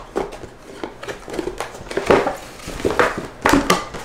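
Wig packaging being handled and opened: irregular rustling and crinkling with sharp crackles. The loudest crackle comes about two seconds in, with a few more near the end.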